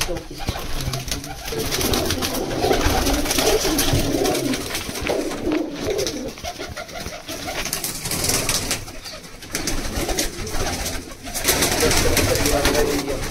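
A loft full of domestic racing pigeons cooing, with overlapping warbling coos from many birds, heard in a small room.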